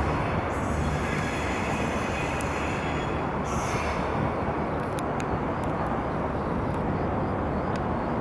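Train running by with a steady rolling rumble, with a few faint high ticks about five seconds in.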